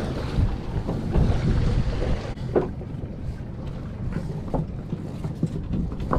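Motor of an inflatable rescue dinghy running steadily close by, a low rumble, with wind buffeting the microphone.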